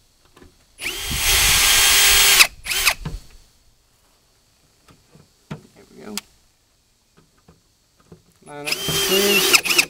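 Ryobi cordless drill driving screws into a new plastic taillight housing. It runs in a steady burst for almost two seconds starting about a second in, then gives a few short blips. Near the end comes a second run of about a second, with its speed wavering.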